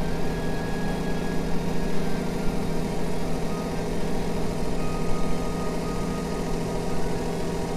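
Suzuki Wagon R MH21S's 660 cc K6A three-cylinder engine idling steadily.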